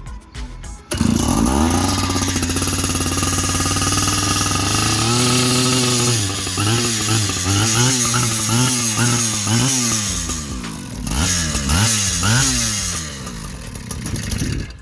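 Husqvarna K970 concrete saw's two-stroke engine comes in suddenly about a second in and runs at a steady speed. It is then revved up and down again and again, about once a second, before settling and stopping near the end.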